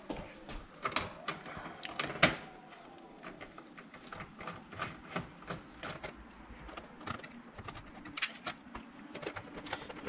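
Scattered small clicks and taps of hands and a screwdriver working on a microwave control board in its metal tray, as wire connectors are unplugged one at a time; the loudest tap comes about two seconds in.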